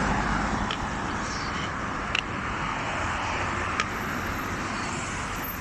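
A rain shower falling steadily, with a few sharp single taps of drops close by.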